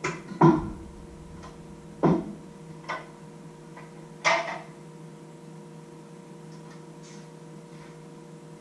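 Kitchen clatter: about five short knocks and clinks as jars, lids and containers are handled and set down on a wooden countertop, the loudest about half a second in, over a steady low hum.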